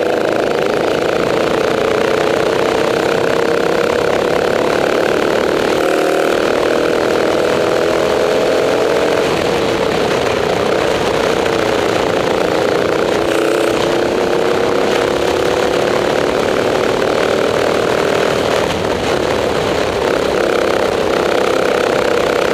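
Rental kart's engine running at racing speed, heard close up from the driver's seat. Its pitch climbs slowly, drops about ten seconds in, then climbs again.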